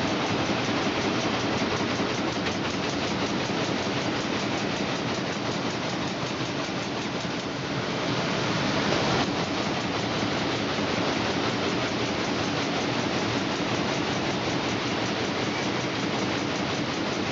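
Electric table fan running steadily, a loud rush of air with a fast, even pulse from the blades. The sound dips and shifts briefly about eight seconds in.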